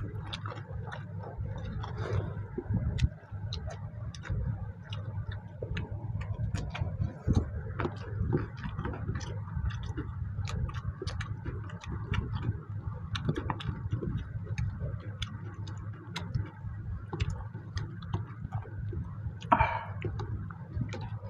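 Close-up eating sounds as two people eat rice and mutton curry by hand from steel plates: chewing and lip smacking, with fingers mixing rice against the metal plates. The result is a run of small, irregular clicks and ticks over a steady low hum, with a brief higher-pitched sound near the end.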